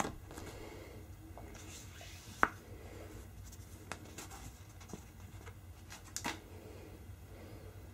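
Paper card handled by hand: soft rustles and scrapes as fingers smear wet paint across it, with a few light taps and clicks, the sharpest about two and a half seconds in, over a faint low hum.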